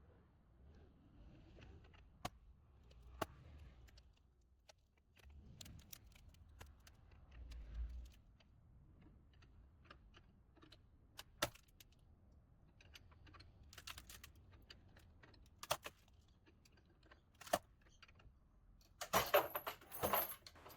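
Faint, scattered clicks and taps over a low rumble as a repaired wooden door is put under a force test, with a louder clatter near the end.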